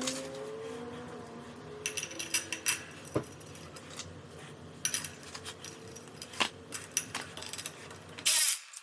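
Scattered light metallic clinks and taps of hand tools and steel bike hardware being handled during assembly, with a denser patch of clatter near the end.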